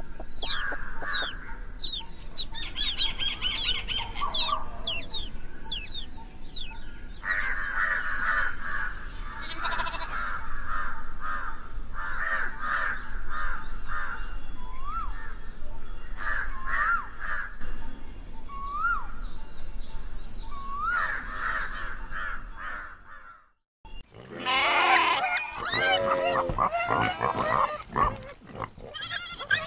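Countryside ambience of many birds chirping and calling, with quick falling chirps at first and pulsing, hooked calls later. After a brief break about three-quarters of the way through, livestock start bleating.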